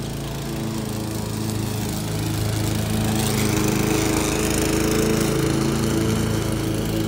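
Gas-powered walk-behind lawn mower running steadily while cutting grass, getting a little louder about three seconds in.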